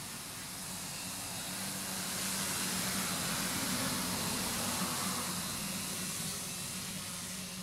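A multirotor tricopter's electric motors and propellers whirring in flight over a steady hiss. The sound grows louder about two seconds in and eases off again near the end as the tricopter comes closer and moves away.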